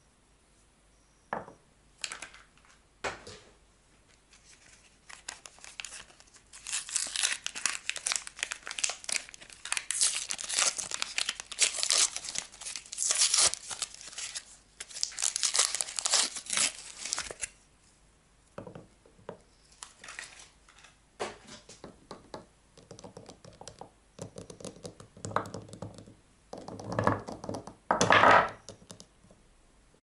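A paper soap wrapper being torn open and crinkled by hand as a bar of soap is unwrapped. A few sharp taps come first, then a long stretch of dense crackling tearing, then quieter rustling, with a louder crumple near the end.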